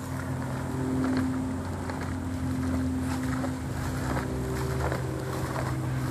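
Steady low machine hum holding a few low tones, with wind noise over it.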